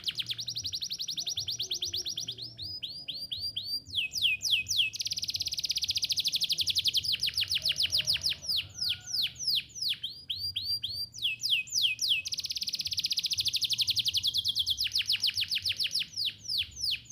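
Domestic canary singing a long, unbroken song of rapid trills, each phrase a fast run of repeated high notes, some falling in sweeps, the phrase changing every second or two. The song stops right at the end.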